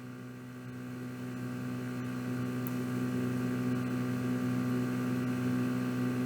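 Steady electrical mains hum with several fixed overtones, slowly growing a little louder.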